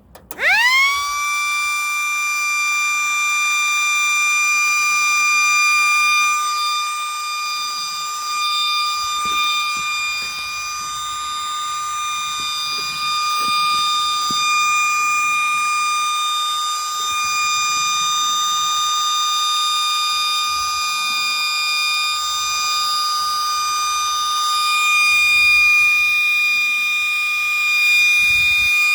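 MS-190 siren starting up, rising within about a second to a steady high-pitched tone that it holds unchanged.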